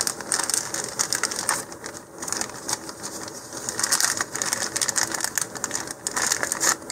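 Quick, irregular clicking and rustling of small parts being handled: a metal engine clip is being fitted to a cardboard rocket body tube.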